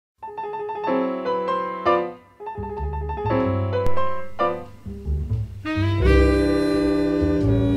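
Instrumental background music: a run of separate melodic notes, with a bass line joining a few seconds in and a fuller, sustained sound from about six seconds in.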